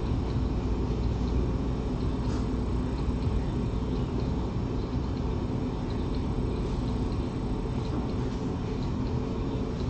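Steady low hum and rumble, with a few faint light ticks.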